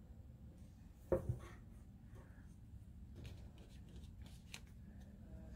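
Hands handling yarn wound on a cardboard bobbin around a wooden embroidery hoop: faint rustles, scrapes and light clicks, with a soft knock about a second in.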